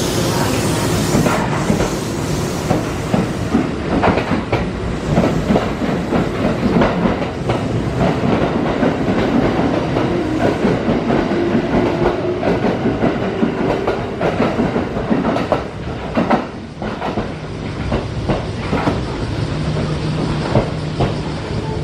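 Kintetsu electric trains moving along the platform at low speed: wheels clattering over rail joints and points with a steady motor hum. The clatter eases a little about two-thirds of the way through.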